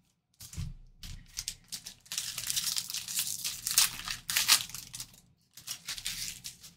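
A baseball-card pack's wrapper being torn open and crinkled in handling. The crinkling comes in bursts and is loudest and densest in the middle, with a last short burst near the end.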